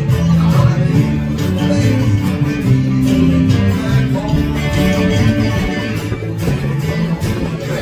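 Live music played on guitar, with a run of changing low notes underneath.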